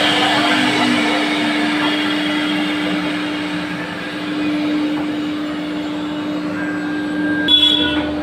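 CNC machine running: a steady hum with a hiss over it, and a sharp click about seven and a half seconds in.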